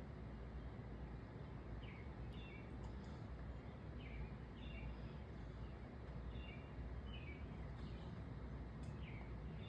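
A bird giving short chirps that drop in pitch, about one a second, over a steady low outdoor background hum.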